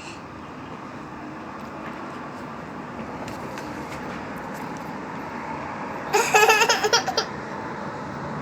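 A young child's high-pitched laughter about six seconds in, the loudest thing here, over a steady rumbling hiss that slowly grows louder.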